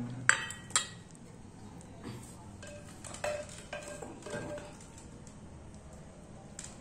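A steel ladle clinking against a clay cooking pot and steel serving bowls as curry is ladled out. There are two sharp, ringing clinks in the first second, then scattered lighter taps and scrapes.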